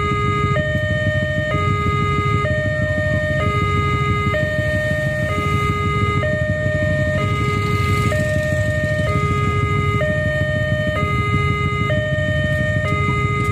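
Railway level-crossing warning alarm sounding: an electronic two-tone signal alternating between a lower and a higher tone, each held about a second, repeating steadily. This is the sign that the crossing is closed and a train is approaching. A low steady rumble of waiting traffic runs beneath it.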